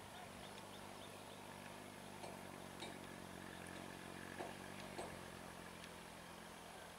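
Faint, distant low hum of a DEMU (diesel-electric multiple unit) train's diesel engine, steady and easing off about five seconds in. A few short bird chirps sound over it.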